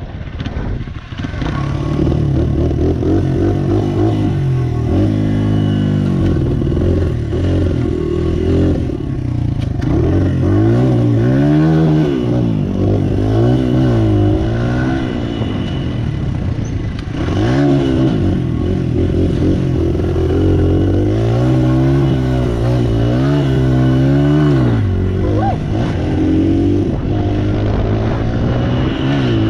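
Small dirt bike engine running as it is ridden, its revs rising and falling again and again, with a few brief drops where the throttle comes off.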